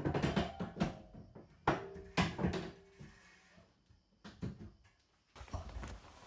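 An aluminium ladder being slid out of a hidden slot in the wall and set in place: a run of knocks and clatters, some with a brief metallic ring. Near the end come further knocks and rumbling as someone climbs it.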